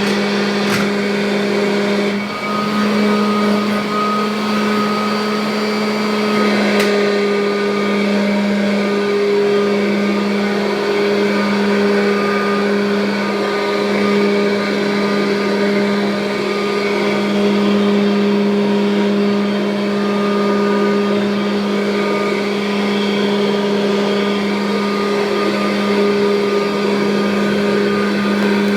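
1984 Kirby Heritage upright vacuum cleaner running steadily: a strong, even motor hum with a higher whine above it.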